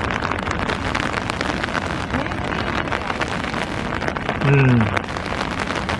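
Steady rushing noise of heavy surf breaking against sea cliffs, with a fine clicking patter on top like rain. About four and a half seconds in, a person's voice briefly cuts in with a short falling sound, the loudest moment.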